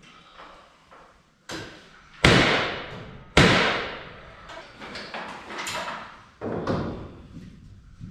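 Nailing blocks into the top of a wood stud wall: a few sharp, irregular knocks, the two loudest about a second apart near the middle, each ringing out in the bare metal building.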